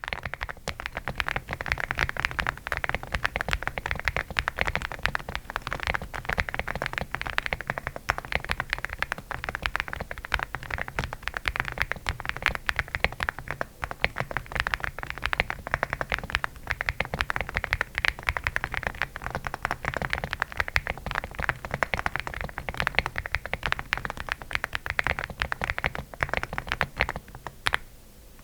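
Steady, fast typing on an Aula F75 mechanical keyboard with Outemu Hanny linear switches and SA-profile keycaps: a dense, continuous stream of keystroke clacks, with a brief pause near the end.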